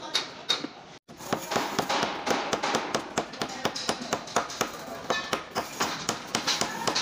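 Background music with a fast, clicking percussive beat, starting after a short break about a second in.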